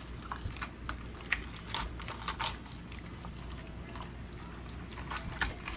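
Wet hands handling pieces of raw fish in a stainless steel bowl: soft wet squelching with scattered small clicks and taps against the bowl.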